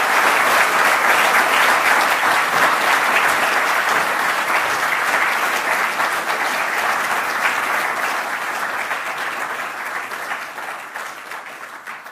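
Large audience applauding: dense, steady clapping that slowly dies away near the end.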